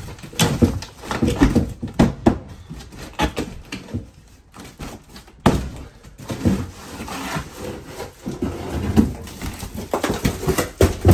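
Irregular knocks, cracks and scraping as rotten interior wood panelling is struck with a pipe and broken loose.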